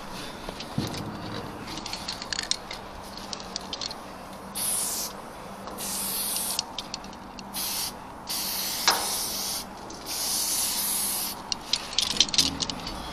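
Aerosol spray paint can hissing in five short bursts, each lasting about half a second to a second and a half, as paint is sprayed on. Small clicks and handling noises come between the bursts.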